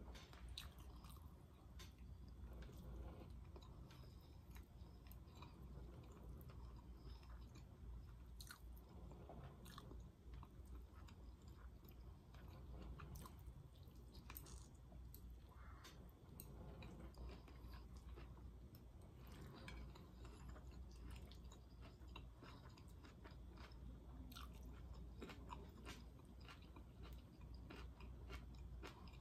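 Quiet chewing and mouth sounds of a person eating noodles and stewed meat, with faint clicks scattered throughout.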